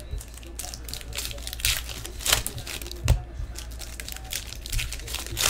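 A foil trading-card pack wrapper crinkling and cards being flicked through and laid onto stacks on a table: irregular crackling and light taps, with a few sharper snaps.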